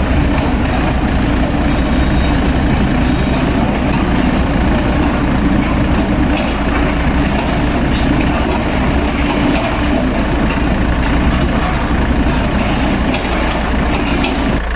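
A heavy vehicle's engine running steadily, with a deep, even low end and no change in speed.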